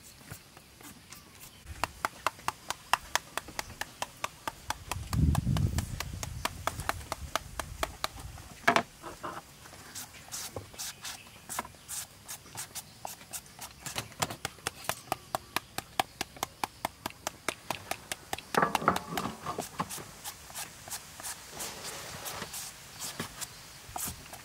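Quick repeated scraping strokes of a hand-held papaya shredder raking thin strips off a peeled green papaya, a crisp stroke each time, several a second, after knife cuts through tomato on a wooden chopping board at the start. A dull low thump about five seconds in.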